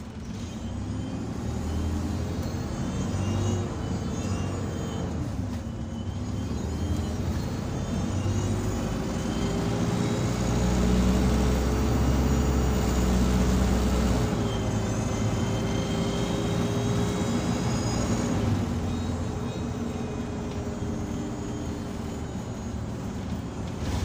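Optare Solo SR bus heard from inside the saloon, its diesel engine pulling hard with a loud vacuum-cleaner-like whine (the 'hoover' sound) over the deep engine drone. The whine dips about five seconds in, then rises and holds steady before falling away near the end.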